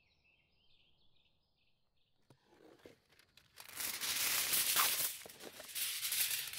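Faint bird chirps, then a loud crackling, rustling noise that builds from about two seconds in and is loudest from about three and a half seconds in.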